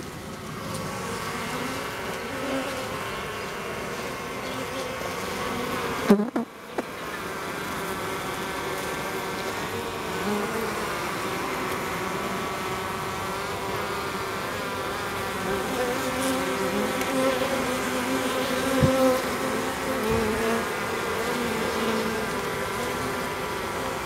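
A mass of honeybees buzzing close by, a steady many-voiced hum whose pitch wavers as the bees move about. A sudden loud bump about six seconds in briefly breaks the buzz.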